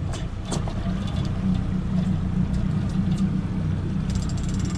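A boat's outboard motor running steadily, a low hum mixed with wind and water noise.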